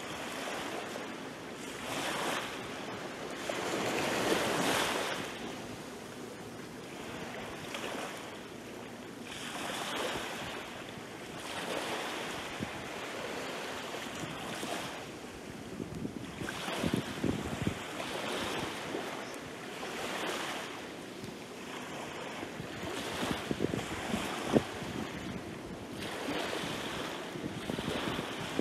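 Small waves lapping and breaking gently on a sandy, pebbly shore, a fresh swelling wash of surf every few seconds.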